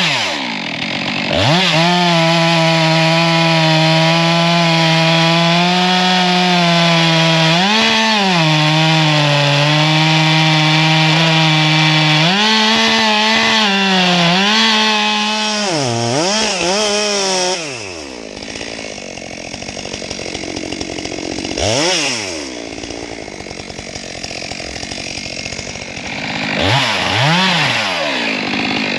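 Two-stroke chainsaw cutting into a solid, bone-dry dead tree trunk, its engine held at high revs with the pitch sagging and recovering under load. About 18 seconds in it drops off to run slower, with two brief revs up and back down, one in the middle of that stretch and one near the end.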